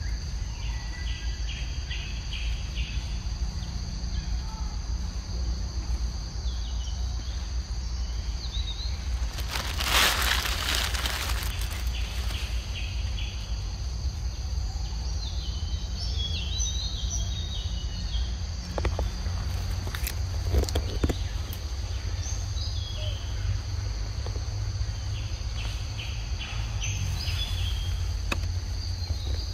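Forest ambience: a steady high-pitched insect drone, with birds chirping in short repeated phrases every few seconds over a low rumble. A brief rush of noise comes about ten seconds in, and a few sharp clicks follow near the twenty-second mark.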